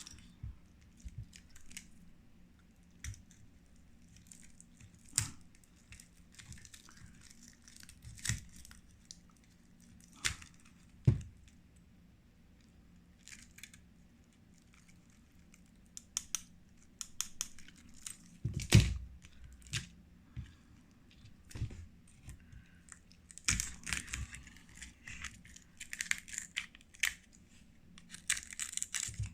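Cracked phone back glass being picked, scraped and peeled off after laser treatment: scattered small clicks, scrapes and crackles of glass fragments, with one louder knock a little past the middle.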